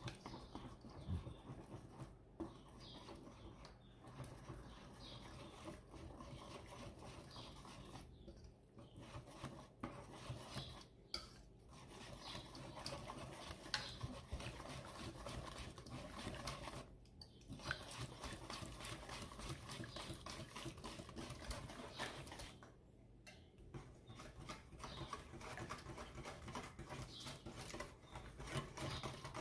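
Wire whisk beating a thin custard mixture in a stainless steel bowl: a faint, quick, steady pattering of the wires swishing through liquid and ticking against the metal, with a few brief pauses.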